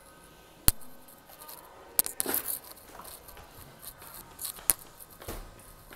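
Footsteps on a hard floor: a few sharp taps and scuffs, spaced irregularly.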